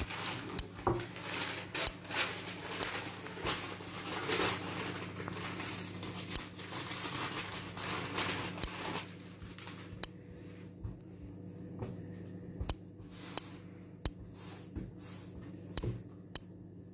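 Baking paper rustling and crinkling as it is lifted and handled, with scattered light taps and knocks on the table; after about ten seconds the rustling stops and only occasional taps remain. A low steady hum runs underneath.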